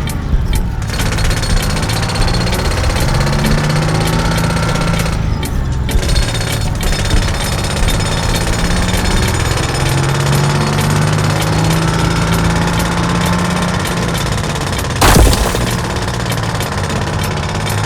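Rapid mechanical rattling over a humming motor tone that rises and falls in pitch, with one sharp, louder burst about fifteen seconds in.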